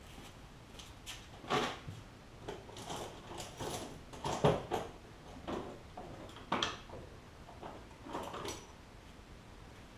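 Hand tools clattering and knocking as screwdrivers are fetched: about seven irregular knocks and clinks, the loudest near the middle.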